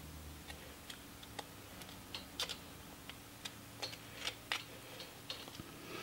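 Pocketknife blade cutting small chips from a linden twig while whittling: faint, irregular clicks and snicks of the blade in the wood, with a few sharper ones in the middle.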